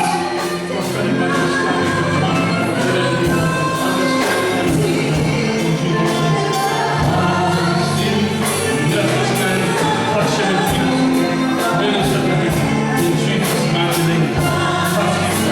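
Gospel worship music: voices singing together over a band with a steady percussion beat.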